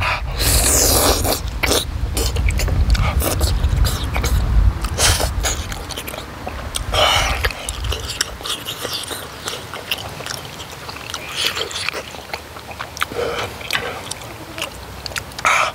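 Close-up mouth sounds of a person eating tteokbokki, chewy rice and wheat cakes in thick spicy sauce: a big mouthful slurped in, then wet chewing and smacking. A low rumble sits under the first half and then stops.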